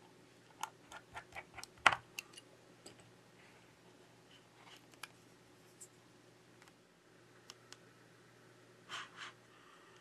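A quick run of small plastic-and-metal clicks and taps, the loudest about two seconds in, as a tool and fingers work on an opened iPad Air 4 around its battery connector, then a few scattered ticks and two short rustles near the end.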